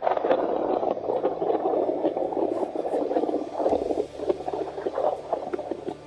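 Thunder starting suddenly and loudly, then rolling and crackling, easing off over the following seconds.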